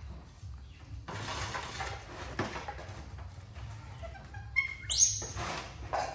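A baby monkey's short, high squeak rising sharply in pitch about five seconds in, amid rustling and handling noise.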